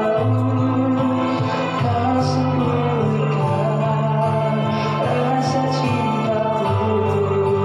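A voice singing a slow melody in long held notes over a steady instrumental accompaniment.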